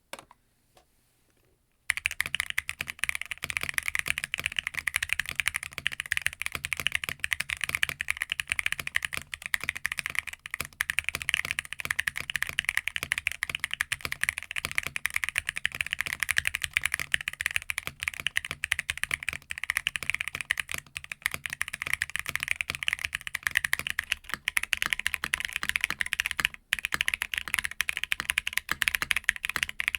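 Typing test on a mechanical keyboard fitted with roller linear switches, a ball-bearing linear with a PC top, nylon bottom and POM stem. The keys are pressed in a fast, continuous run and give a deep sound with a sharp clack. The switches sit in an Arc60 aluminium plate, and after a brief break near the end they are in a Sonnet carbon fibre plate.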